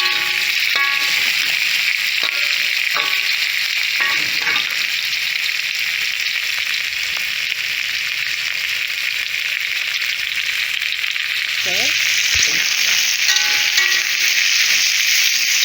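Sausages, capsicum and shiitake mushrooms sizzling in hot oil in a frying pan, stirred with a few short utensil scrapes against the pan. The sizzle grows louder and brighter about eleven seconds in.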